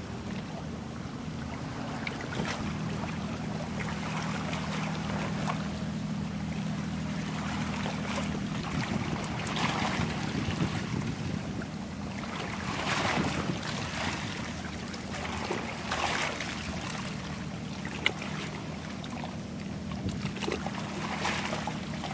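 Boat engine running with a steady low hum, with water splashing in repeated short surges.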